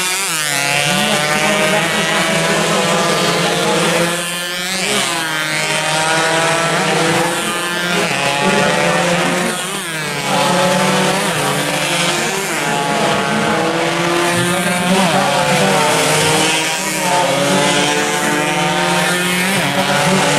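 Two-stroke Yamaha F1ZR underbone racing motorcycles running at high revs on a circuit. The engine pitch climbs and falls again and again as the riders shift gears and pass, with loudness dipping briefly twice.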